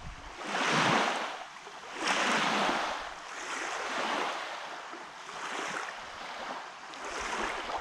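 Lake waves washing onto the shore, swelling and ebbing every second or two.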